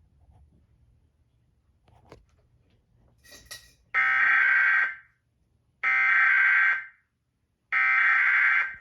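Emergency Alert System SAME header: three buzzy bursts of digital data tones, each about a second long and about a second apart. This is the coded header that opens an EAS Required Monthly Test. The bursts come after a few quiet seconds.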